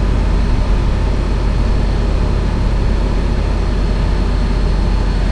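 Tour coach's engine running, heard inside the cabin as a loud, steady low rumble, with a thin steady high whine over it.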